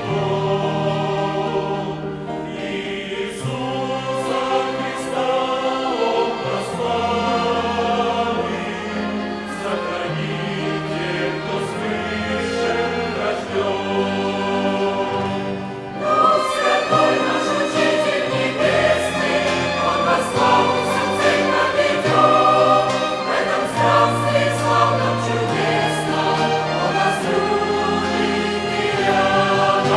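Church choir singing a hymn, accompanied by a violin ensemble; the music swells louder about halfway through.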